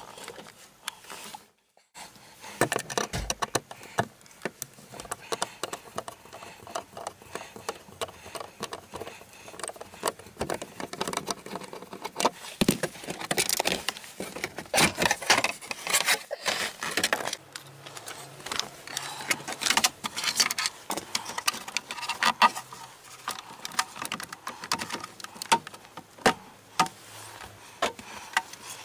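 Irregular clicks, rattles and clatter of a hand tool and plastic trim being worked under a car's dashboard.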